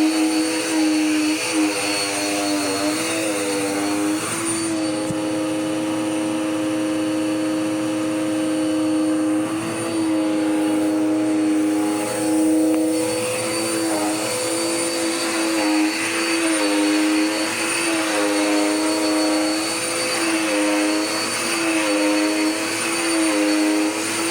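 Dirt Devil Power Max Pet upright vacuum cleaner running: a steady motor whine with airy rushing, its pitch wavering and dipping slightly every second or two.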